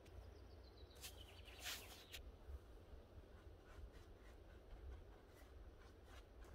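Faint, scratchy strokes of a paintbrush dragging gel paint across the dry wooden boards of a garden table, clustered about one to two seconds in; otherwise near silence.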